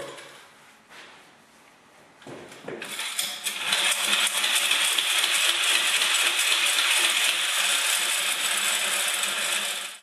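Hand-pumped paint roller spinner whirling a wet roller sleeve inside a plastic five-gallon bucket, flinging the water out of it. The sound starts about two seconds in, builds to a steady whirring hiss, and cuts off suddenly at the end.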